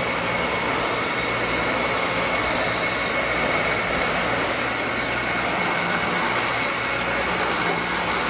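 Dyson Ball Animal upright vacuum cleaner running steadily over carpet: a constant rush of air with a steady high motor whine.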